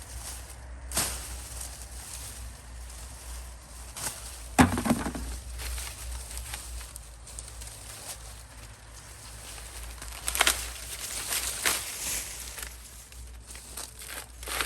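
Dry corn husks and stalks rustling and crackling as they are handled, with scattered sharp snaps and one heavier knock about four and a half seconds in.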